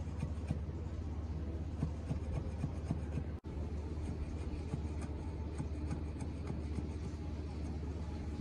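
Chef's knife chopping fresh herbs on a wooden cutting board: a string of quick, light, irregular knocks of the blade on the wood, over a steady low hum. The sound cuts out for an instant a little over three seconds in.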